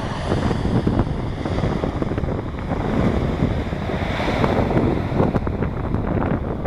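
Strong wind buffeting the microphone in uneven gusts, a rough low rumble throughout.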